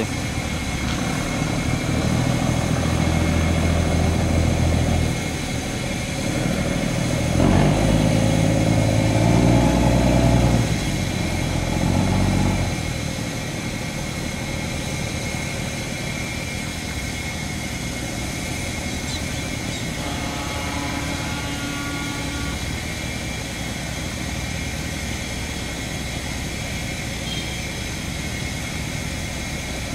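Barge engine running loud and shifting pitch for the first dozen or so seconds, then dropping to a quieter, steady hum.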